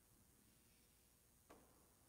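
Near silence: faint room tone, with one soft click and a short echo about three-quarters of the way through.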